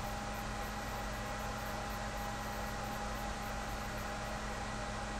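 Steady hiss with a faint constant hum and whine underneath, unchanging throughout: the background noise of the narration recording, with no voice and no other event.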